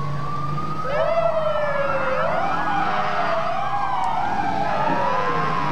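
Sirens wailing, at least two at once: one is already sounding, a second joins about a second in, and their pitches slide slowly up and down out of step with each other.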